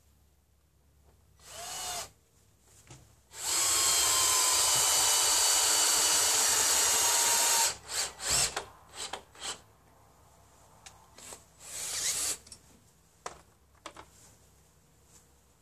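Cordless drill boring pilot holes into spruce roof battens: a short spin-up about a second and a half in, then about four seconds of steady drilling with a whine, and another short burst near the end. A few sharp knocks come just after the long run.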